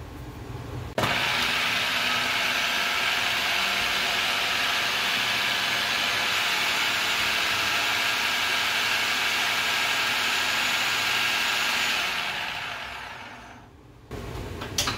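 Electric food processor switched on about a second in, its motor and blade running steadily while chopping onions pushed down the feed chute, then switched off and winding down near the end.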